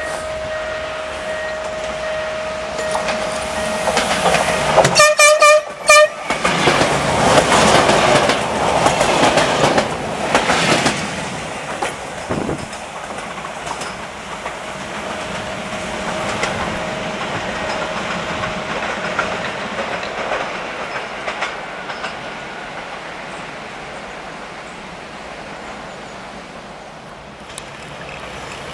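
A steady ringing tone, then a passenger train's horn sounds one short, loud blast about five seconds in. The train's wheels rumble and clatter loudest for the next few seconds, and the noise then slowly fades.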